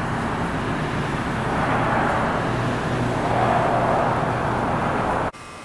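Loud outdoor rushing noise with a low rumble, swelling and easing. It cuts off abruptly about five seconds in.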